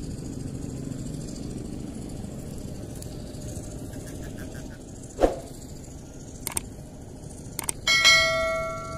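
A metal object is struck loudly near the end and rings on with several clear tones as it dies away. A sharp thump comes about five seconds in, and a few light clicks follow, over a steady low background rumble.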